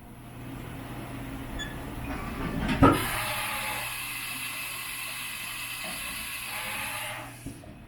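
A 1996 Haas VF-3 CNC vertical milling machine gives a sharp clunk, then a steady hiss, like air, for about four seconds that cuts off. A low electrical hum runs underneath.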